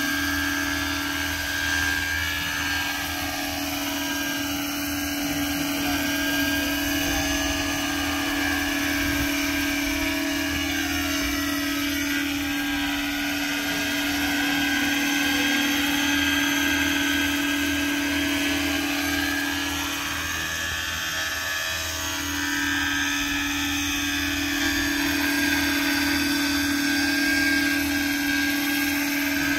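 Roban scale Bell 429 radio-controlled model helicopter in flight: a steady whine from its rotors and drivetrain, dipping and rising in pitch several times as it manoeuvres.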